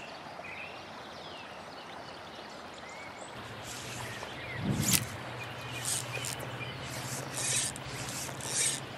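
Shallow river water running steadily. From about halfway comes a string of short rustling noises, the loudest about five seconds in.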